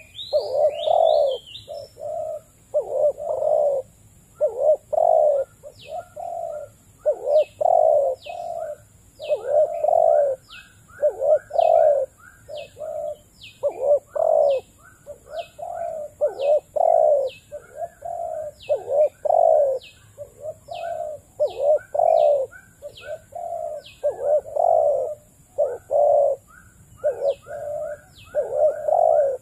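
Zebra dove cooing over and over in rapid runs of short coos, phrase after phrase with barely a pause. Short thin high chirps repeat about twice a second through much of it.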